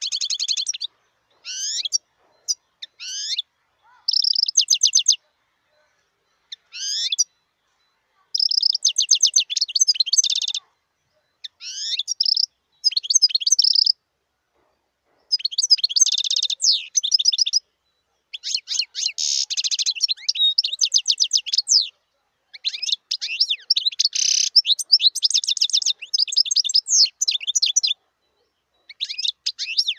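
European goldfinch singing: phrases of rapid, liquid twittering and trills, separated by pauses of a second or so at first, then running almost without a break through the second half.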